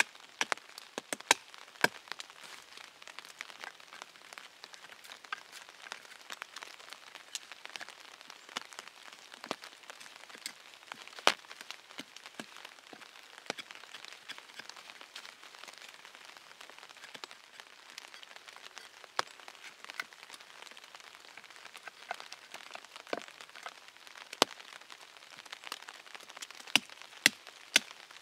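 Fixed-blade knife chopping at the point of a wooden tent peg held against a log: irregular sharp cracks of steel biting into wood, a few much louder than the rest.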